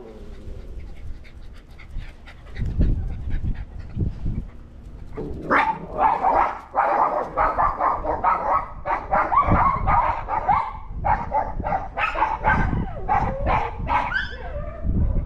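Dogs barking hard at another dog, the hostile barking of dogs confronting a neighbour's dog they dislike. The barking starts about five seconds in and goes on almost without a break; before that there are only a few low thumps.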